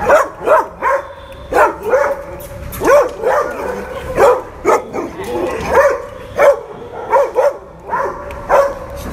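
Dog barking repeatedly from behind a chain-link kennel fence, short sharp barks coming about every half second to a second.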